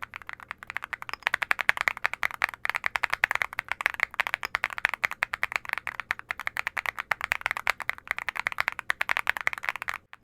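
Fast, continuous typing on a mechanical keyboard fitted with Cerakey ceramic keycaps: a dense run of bright, clacky keystrokes, about ten or more a second, with a short pause near the start.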